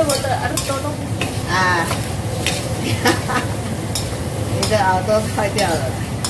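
Squid and chives being stir-fried in a steel wok: a steady sizzle, broken by repeated irregular scrapes and clacks of a metal spatula against the wok as the food is tossed.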